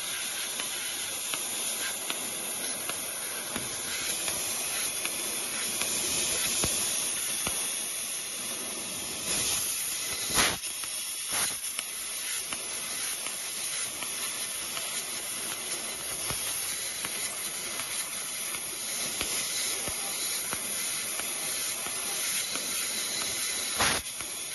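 Fiber laser cutting head cutting 0.3 mm aluminium sheet: a steady high hiss of assist gas from the nozzle, with a few sharp pops, the loudest about ten seconds in and another near the end.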